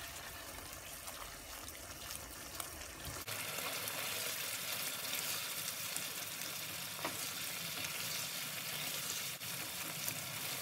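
Chicken pieces in tomato masala sizzling and frying in a nonstick pan while being stirred, with the sauce cooking down as the chicken's own liquid dries off. The sizzle gets louder about three seconds in.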